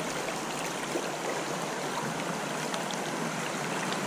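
Small trout stream running a little high, its current rushing over rocks in a steady, even wash of water.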